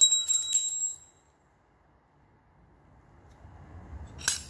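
Metal scooter engine parts clinking together. In the first second a rapid cluster of clinks gives a bright ringing note. One sharp clink comes near the end.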